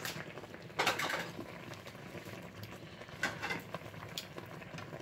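Black tea broth with chicken breasts simmering hard in a frying pan: steady bubbling with irregular small pops and spits, a louder splutter about a second in, as the broth reduces toward a gravy.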